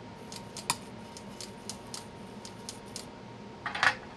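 Small, sharp clicks and ticks of hands handling small tools and the wire at the pickup-winding bench, a dozen or so light ones, then a louder crackling cluster near the end.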